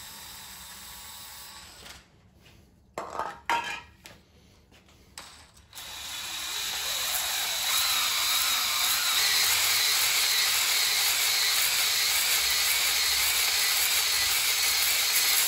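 An aerosol can of WD-40 hissing as it sprays a Flex-Hone ball hone, then a few knocks as the can is put down and the hone goes into the bore. From about six seconds in, a cordless drill spins the ball hone inside a cylinder of the Ford 4.6L DOHC block. It makes a steady, loud scrubbing whirr that builds up and then holds, as the hone scours rust off the cylinder wall.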